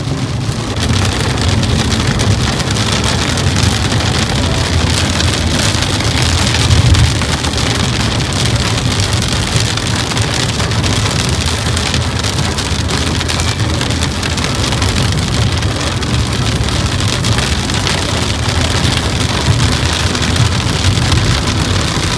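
Heavy rain beating steadily on a moving car, with the car's low road drone underneath.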